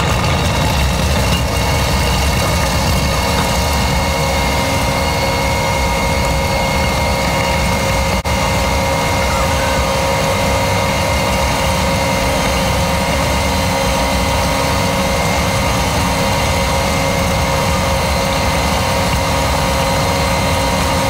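Diesel engine of a Kubota machine running steadily at work, a constant rumble with a steady whine over it.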